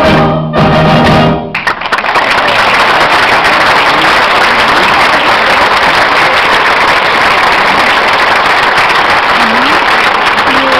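Choir with instrumental accompaniment ending on a held chord that cuts off about a second and a half in, followed by sustained audience applause.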